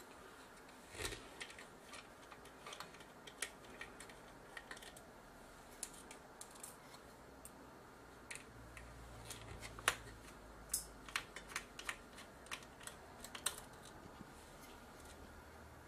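Light, irregular clicks and taps of a small screwdriver and tiny screws against the metal chassis of a camcorder as its screws are undone, with a quick run of clicks about ten to thirteen seconds in.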